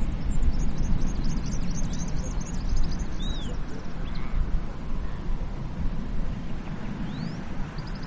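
Steady low rush of sea ambience with small birds chirping and trilling high above it, the trills thickest in the first half and one arching call about three and a half seconds in.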